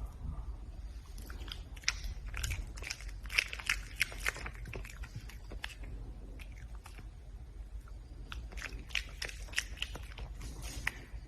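Red panda chewing and crunching food, a quick run of sharp bites in two busy spells.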